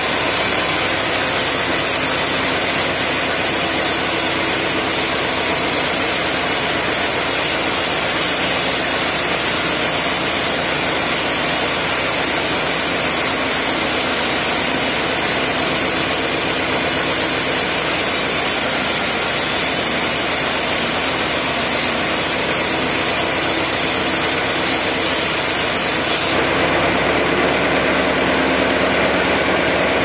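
Band sawmill running with a steady, loud machine drone and no breaks. About 26 seconds in, the tone shifts abruptly: the upper hiss drops away and the low end grows stronger.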